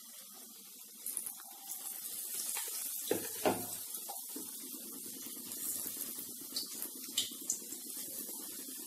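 Sweet wheat-flour appam batter deep-frying in hot oil in a kadai: a steady sizzling hiss of bubbling oil that grows louder about a second in as more batter goes in. A soft knock about three seconds in and a few sharp pops and crackles later on.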